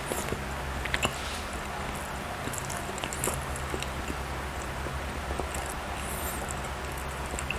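Close-miked chewing of soft bread and cake: small wet mouth clicks and smacks scattered through, over a steady low hum.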